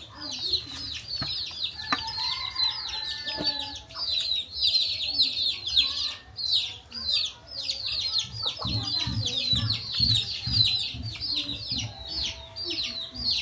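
Small birds chirping continuously and quickly, several short high downward-sliding calls a second, with lower calls or clucks coming and going from about eight seconds in.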